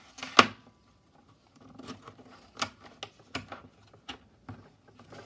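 Plastic embroidery hoop clicking and clacking as tearaway stabilizer is fitted into it. One sharp click about half a second in is the loudest, then a scattering of lighter clicks and taps.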